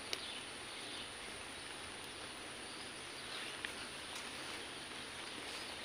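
Faint, steady outdoor ambience, an even hiss, with a couple of soft ticks and no clear splashing.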